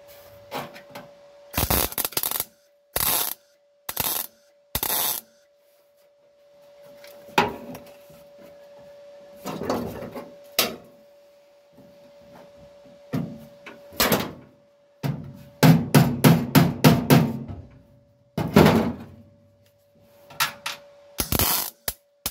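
MIG welder tack-welding sheet-steel floor panel: short bursts of arc noise, each under a second, in small groups, with a quick run of brief tacks about two-thirds of the way through.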